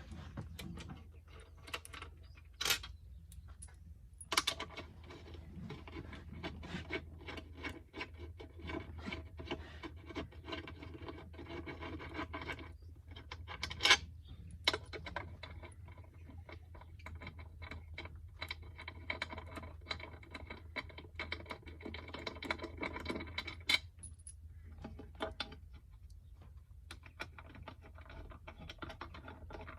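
Hand tools clicking, clinking and knocking on metal, with several sharper knocks, as the bolts of a Gilera Nexus 500 scooter's CVT cover are worked on to get the cover off.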